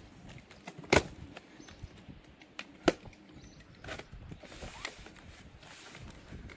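Cardboard box being opened by hand: the flaps rubbing and creaking, with two sharp knocks about one and three seconds in and lighter taps after.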